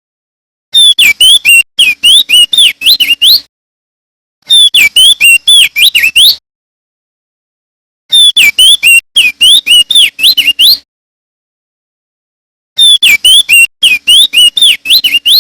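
Male opior jambul (crested dark-eye) singing loud, clear song: four bouts of quick whistled notes, each note sweeping down and back up, with silent gaps of about a second or two between bouts.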